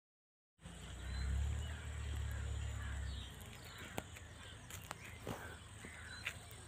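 Outdoor ambience that starts about half a second in: birds chirping and calling, over a low rumble that is strongest for the first few seconds, with a few sharp clicks.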